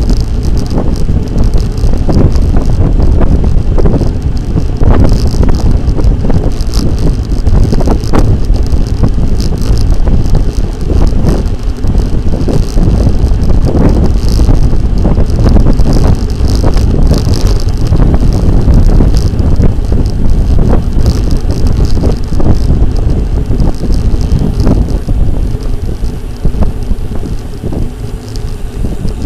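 Wind buffeting the microphone of a camera on a moving bicycle, a loud steady low rumble with road and tyre noise and scattered small clicks and rattles.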